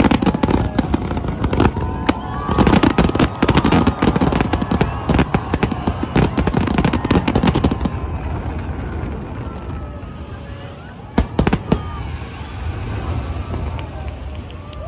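Fireworks display: many shells bursting in rapid, dense bangs and crackle, thinning out after about eight seconds, with a couple of last bangs about eleven seconds in. Crowd voices can be heard underneath.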